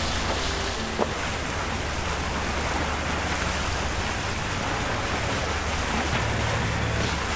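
Steady rush of wind and water on the deck of a sailing catamaran under way, with a single click about a second in.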